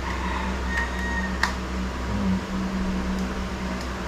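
Steady low mechanical hum, like an electric fan, with a single sharp click about one and a half seconds in.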